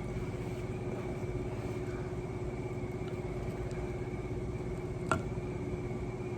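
A steady mechanical hum holding a constant low tone and a fainter high one, with a single short click about five seconds in.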